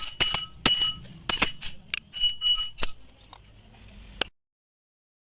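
Metal parts clinking and knocking together, about a dozen sharp strikes, several leaving a short ringing tone; the sound cuts off suddenly a little past four seconds in.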